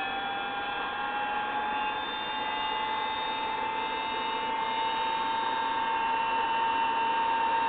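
Cooling blowers of a Collins 618T airborne HF transmitter running with a fairly noisy, steady whirr and a whine that slowly rises in pitch.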